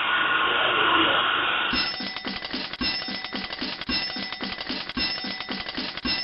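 A steady rushing noise gives way, about two seconds in, to a rhythmic ringing with a regular beat of about three strokes a second.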